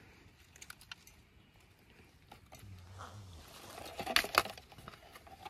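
Scattered light clicks and clinks, with a cluster of sharper, louder clicks about four seconds in.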